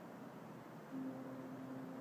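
A ship's horn starts sounding about a second in and holds one steady low note, over a faint hiss. It is one of the horns that ships in Yokohama harbour sound to greet the New Year.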